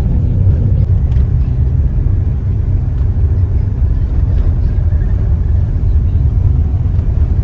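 Car driving along, with a steady low rumble of engine and road noise.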